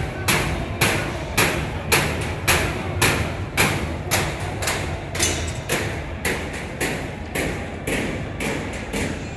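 Steady rhythmic banging by protesters, about two hard strikes a second, keeping an even beat over a constant background din.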